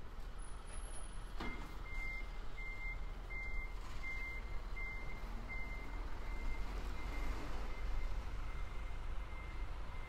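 A vehicle's reversing alarm beeping at one steady pitch, about one and a half beeps a second, starting just after a sharp click about a second and a half in; the beeps are loudest for the first few seconds and then go on fainter, over a steady low rumble.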